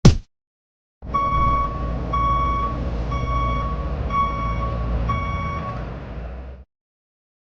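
Truck reversing alarm beeping five times, about once a second, over a low engine rumble; both start about a second in and cut off suddenly near the end.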